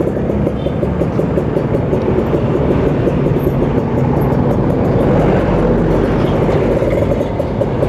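Kawasaki Ninja 150 RR's two-stroke single-cylinder engine running steadily on the move.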